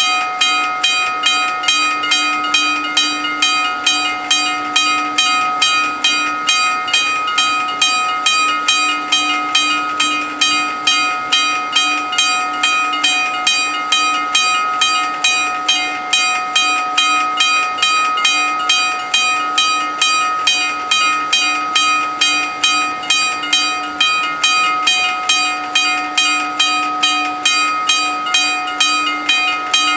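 Level crossing warning bells ringing in rapid, evenly repeated strikes, each ringing on at fixed pitches. They warn that a train is coming while the barriers are down.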